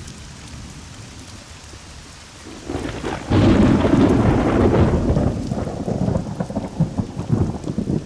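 Thunderstorm: steady rain, then a loud clap of thunder about three seconds in that rumbles and fades over a couple of seconds into heavy rain pattering on leaves.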